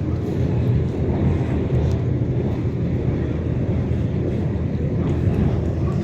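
Ferry's engine running under way: a steady, even low rumble.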